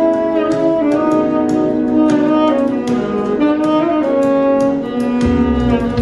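Alto saxophone playing a slow melody of held notes that step up and down in pitch. A low bass part comes in about five seconds in.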